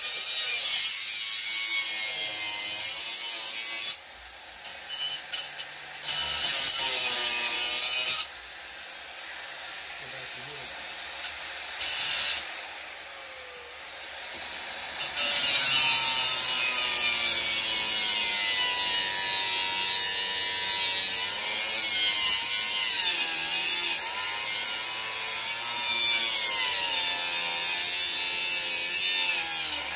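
Angle grinder with a cut-off disc cutting into the steel shell of a small compressor: a loud grinding hiss over the motor's whine, which bends in pitch as the load changes. The cutting breaks off three times between about 4 and 15 seconds in, leaving only the quieter motor whine, then resumes steadily.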